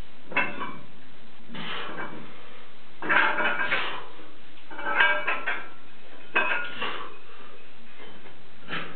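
Metal weight plates clinking and rattling on a loaded barbell as it is lifted and moved, in several short bursts with pauses between, the busiest about three and five seconds in.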